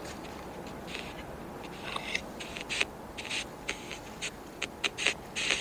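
A run of short, irregular scrapes and rustles from someone moving about close by, with clothing and feet on the ground, coming more often in the second half.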